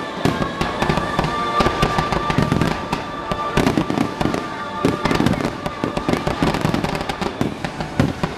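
Aerial fireworks going off in a dense run of bangs and crackles, with music playing underneath.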